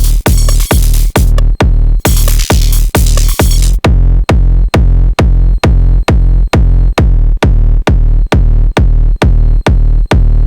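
Sonic Potions LXR-02 digital drum machine playing a steady four-on-the-floor techno kick at about two beats a second, each kick a deep punchy thump. Bright high percussion runs over the kick for the first four seconds, then stops. From there the kick goes on alone.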